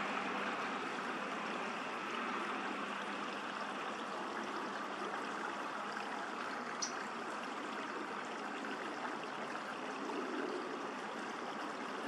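Steady rushing of running water, with one short high click about seven seconds in.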